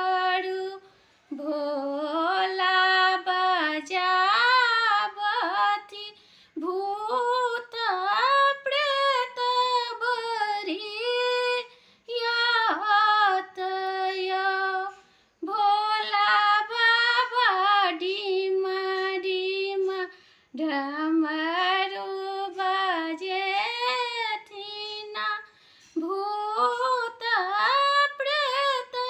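A woman singing a Maithili Maheshwani, a devotional song to Shiva, alone and without instruments. Her phrases are a few seconds long, with brief breaks for breath between them.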